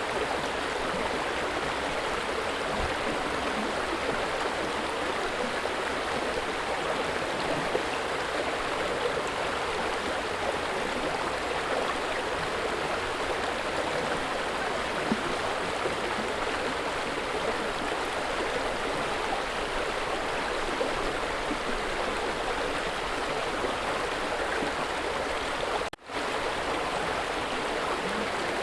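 River water flowing steadily, an even continuous rushing. It drops out for a split second near the end.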